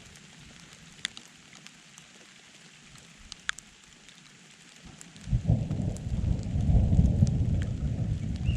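Light rain with scattered drops ticking. About five seconds in, a low thunder rumble rolls in and builds, still going at the end.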